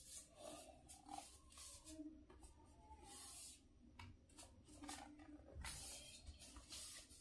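Faint handling noise of a laptop display assembly being turned over and set down on a foam sheet: scattered light plastic clicks and taps with brief rustling.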